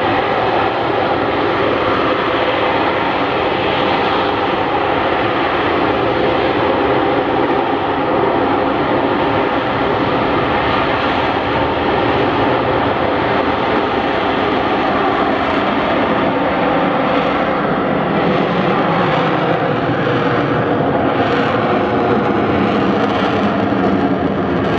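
AV-8B Harrier II Plus's Pegasus turbofan running at high thrust as the jet hovers and then climbs on its nozzles: a loud, steady jet noise with a whining tone through it. Near the end the hiss takes on a slow, swirling sweep as the aircraft rises overhead.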